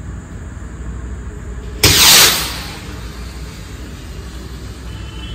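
Firework sky rocket launching from a bottle: a sudden loud whoosh about two seconds in that fades away within about a second.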